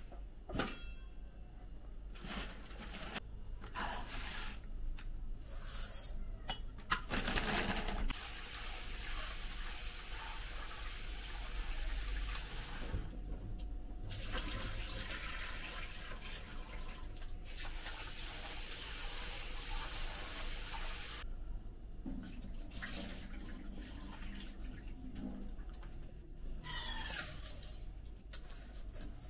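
Kitchen tap running steadily into a stainless steel sink while a pot is rinsed under it, stopping briefly once. Knocks and clinks of pots and lids come before and after the running water.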